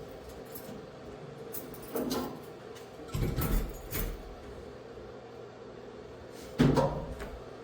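Metal clunks and knocks as a commercial coin-operated washer's panels are handled: one knock, a cluster of heavier clunks, then a sharp bang about six and a half seconds in, the loudest.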